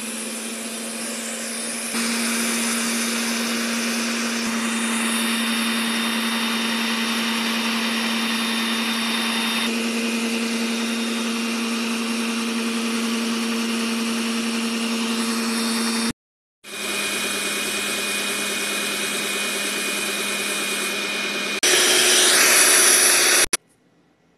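Electric mixer motor running steadily with a humming whir as it beats instant coffee, sugar and hot water into whipped coffee cream. It gets louder about two seconds in, cuts out briefly two-thirds of the way through, comes back at a slightly different pitch, runs louder near the end and then stops.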